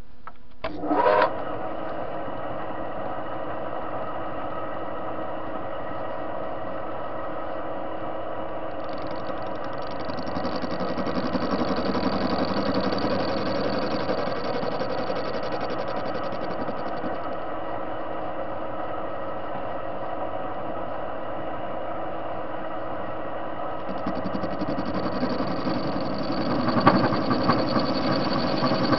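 A TV-16 lathe starts with a clunk about a second in and then runs steadily, its gear drive humming. A higher hiss joins twice as the tool cuts the spinning metal washer.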